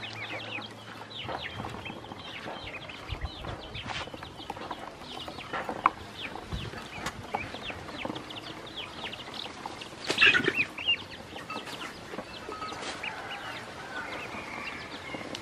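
A flock of domestic ducklings peeping constantly, many short high calls that slide downward, with a louder burst of peeping about ten seconds in. Occasional soft knocks and splashes from the birds moving in a shallow plastic basin of water.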